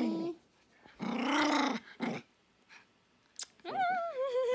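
Small dog grumbling and whining: a rough grumble that rises and falls about a second in, then a higher, wavering whine that slides down in pitch near the end.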